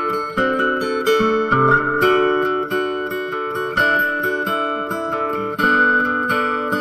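Background music: an instrumental track of plucked acoustic guitar notes.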